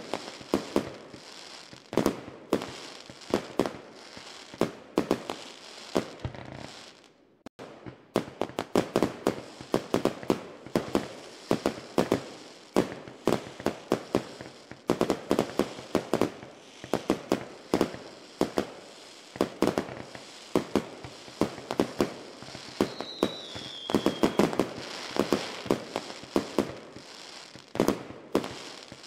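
Fireworks going off in a dense barrage of sharp bangs and crackles, with a brief lull about seven seconds in. A short falling whistle sounds late on.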